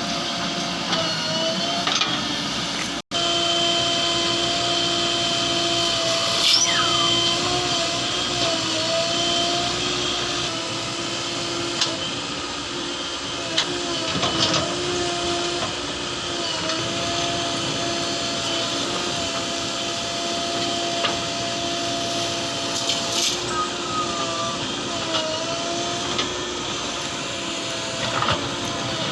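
JCB 3DX backhoe loader's diesel engine running steadily, its pitch dipping briefly every few seconds as the hydraulics take load while digging and loading mud. There are scattered clicks and a couple of short falling squeaks, and the sound drops out for an instant about three seconds in.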